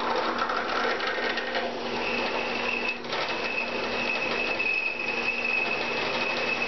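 Drill press running as a 3/4-inch drill bit bores down into a cast aluminum cannon barrel: a steady motor hum with the fine chatter of the cut. A thin, high squeal joins about two seconds in and holds on, with one brief break.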